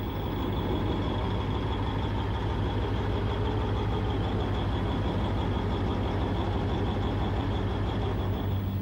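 AS-90 self-propelled gun's diesel engine running steadily while the barrel is laid onto its target, with a thin steady high whine over the engine hum.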